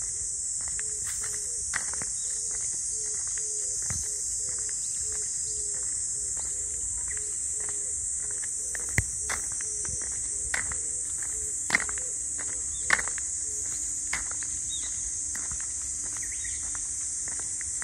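Insects singing in a steady high-pitched drone over a summer field, with scattered footsteps and handling knocks on top, several sharper knocks in the second half.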